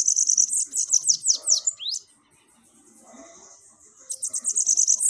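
Bananaquit (sibite) singing: a burst of rapid, high-pitched buzzy trilled song that ends in a few quick down-sweeping notes about two seconds in, then after a short pause a second burst starting about four seconds in.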